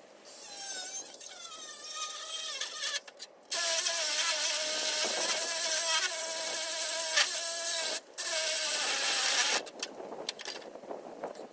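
Power saw cutting metal: a high, wavering motor whine over a harsh hiss. It stops briefly twice and eases off a little before the end.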